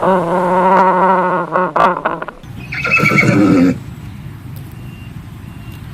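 Horse whinnying: a long call with a wavering pitch, then a second, shorter call about three seconds in.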